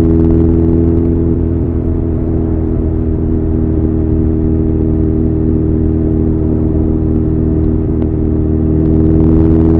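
Honda CB1100's air-cooled inline-four running steadily through an Arrow full exhaust system, with a slight rise in loudness near the end.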